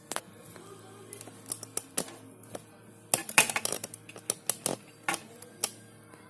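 Irregular sharp clicks and rattles of small parts and tools being handled, with a dense cluster about three seconds in.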